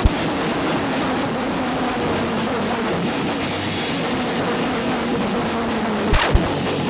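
A steady, loud wall of distorted noise with a few held tones and no drumbeat: electric guitar and bass amplifiers droning and feeding back between songs. A sharp glitch from the camcorder tape cuts in at the start and again about six seconds in.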